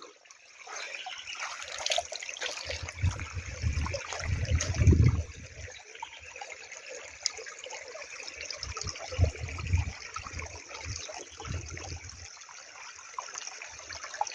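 Spring water running continuously at a small spring-fed water hole, a steady trickling and splashing. There are a few stretches of low bumping, around 3 to 5 seconds in and again around 9 to 12 seconds.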